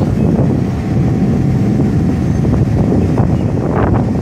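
Rumble and irregular clanking of a diesel-hauled passenger train's coaches rolling slowly along a station platform track, with a faint steady whine from about half a second in and wind on the microphone.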